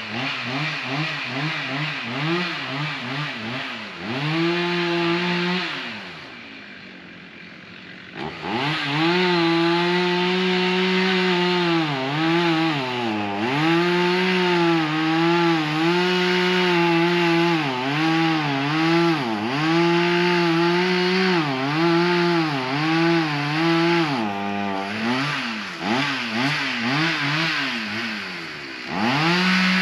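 Two-stroke chainsaw running near full throttle and cutting into the oak, its pitch repeatedly sagging and recovering as the chain loads up in the wood. About six seconds in it drops off for a couple of seconds, then revs back up and cuts on.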